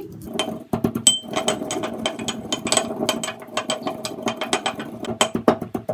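Brass mortar and pestle pounding coriander and fennel seeds: rapid repeated metal-on-metal strikes, a few per second, each with a ringing brass tone.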